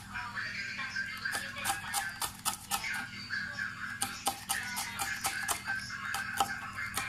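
Kitchen knife chopping red chillies on a cutting board: quick, slightly uneven taps of the blade against the board, about three a second, with a short pause just past the middle. Music plays in the background.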